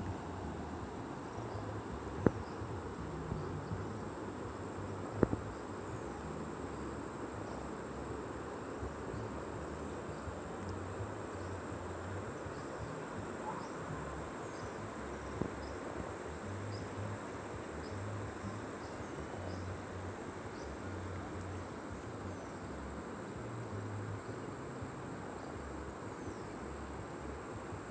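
A steady, high-pitched insect chorus over the even rush of a flowing river, with two sharp knocks in the first few seconds.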